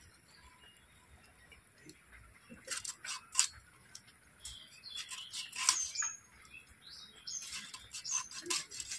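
Small birds chirping: scattered short, sharp chirps and a few quick falling high notes, starting about three seconds in.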